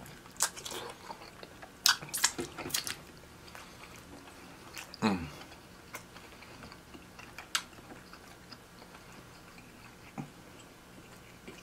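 Close-miked eating sounds from a seafood mukbang: chewing and biting, with scattered wet clicks and smacks, most of them in the first three seconds.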